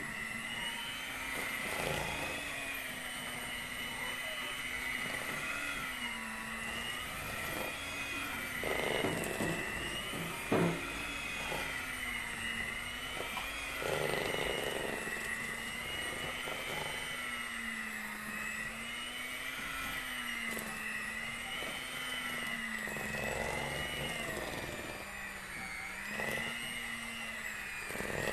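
Handheld electric mixer running, its beaters whirring through batter in a stainless steel bowl, with a steady motor hum that wavers slightly in pitch. The beaters knock against the bowl now and then, the loudest about ten seconds in.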